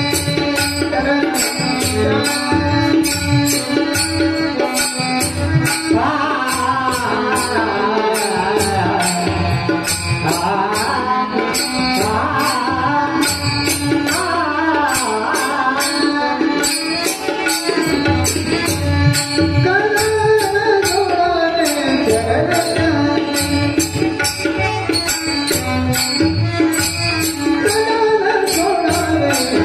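Marathi Warkari bhajan: a man's voice singing long, ornamented gliding lines over a steady drone and a regular beat of jingling cymbals and drum; the singing enters about six seconds in.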